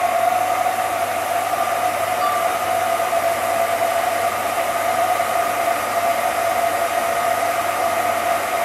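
Cine film projector running: a steady whir with a constant high hum.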